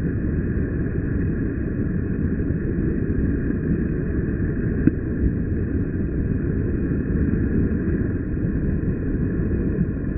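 Steady low rumble of wind on the microphone mixed with sea surf washing against rocks, with one faint tick about five seconds in.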